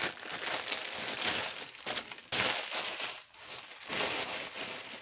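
Clear plastic packaging crinkling and rustling in irregular bursts as a rolled diamond painting canvas in its plastic wrap is handled.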